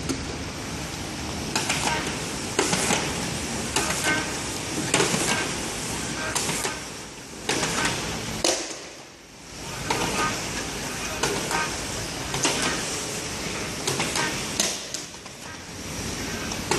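Automatic round-bottle labeling machine running: a steady mechanical whir with sharp clacks about once a second, easing off briefly about halfway.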